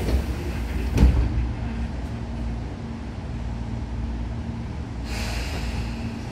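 Inside a Tobu 9000 series train car: a steady low rumble and hum, with one sharp knock about a second in and a short hiss of air about five seconds in.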